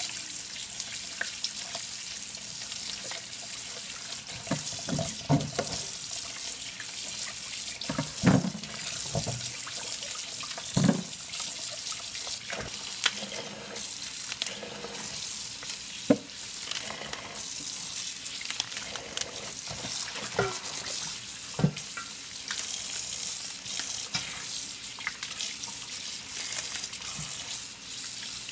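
Kitchen tap running steadily into a stainless steel bowl in a steel sink as eggplants and then leafy greens are rubbed clean under the stream, water splashing over the produce. A few brief knocks stand out now and then over the steady rush of water.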